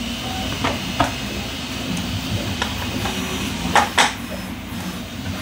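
Hard plastic clicks and taps as a 3D-printed stand's clamp is handled and fitted onto a plastic toy vehicle, with two sharper clicks close together just before four seconds in, over a steady low hum.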